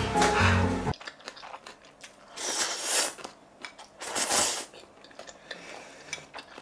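Close-miked mouth sounds of someone eating spicy fire noodles: quiet chewing with small clicks, and two louder slurps, about two and a half and four seconds in. Background music plays for about the first second.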